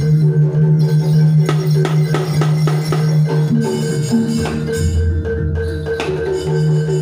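Live Javanese gamelan music for a jaranan dance. Struck percussion, including kendang hand-drum strokes and metallic hits, plays over sustained melodic tones that shift pitch from time to time.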